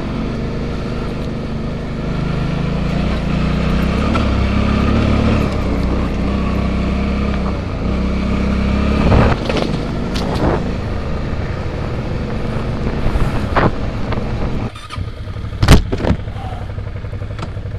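Suzuki V-Strom motorcycle engine running under way on a muddy track, picking up revs a few seconds in. From about nine seconds in come several sharp knocks and bumps, the loudest near the end.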